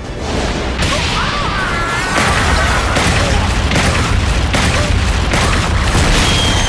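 Animated battle sound effects: a fast, dense run of heavy impact booms and blasts over a continuous rumble.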